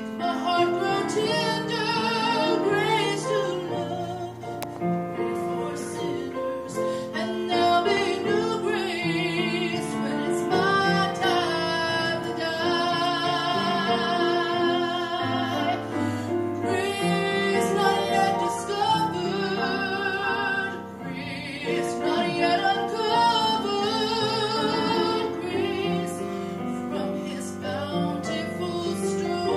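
A woman singing a solo with a wide vibrato, holding long notes, over piano accompaniment.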